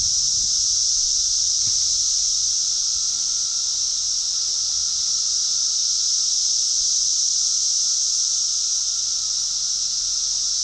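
A steady, high-pitched drone of insects, with a fainter, lower steady whine beneath it.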